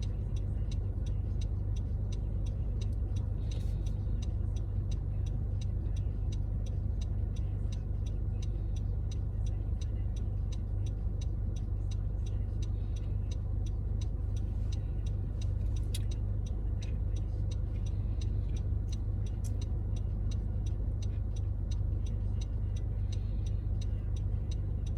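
Car's turn signal clicking steadily in the cabin, over the low, even rumble of the car idling at a stop.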